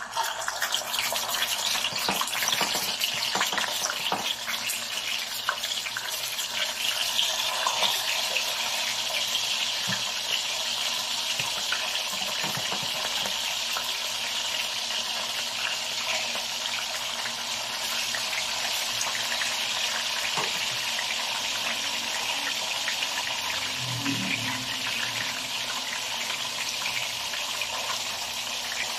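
Pieces of tilapia frying in hot cooking oil in a wok: a steady sizzle with fine crackling, starting as the first piece goes in and going on as more pieces are laid in.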